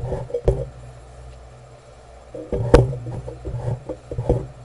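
A few sharp clicks and knocks of tools and objects being handled on a workbench, the sharpest about two and a half seconds in, over a steady low hum.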